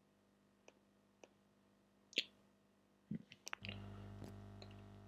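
Faint computer mouse and keyboard clicks: a few single clicks, a sharper one about two seconds in, then a quick run of clicks a little after three seconds. A low steady hum comes in right after that run and stays.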